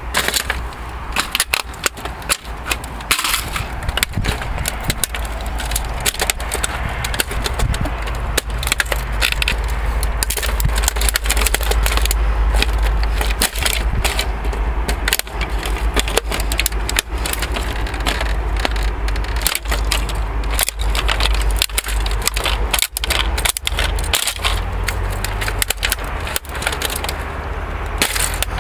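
A fax machine's plastic casing being stomped and trampled under leather riding boots, cracking, snapping and crunching in a rapid, irregular run of sharp impacts, over a steady low rumble.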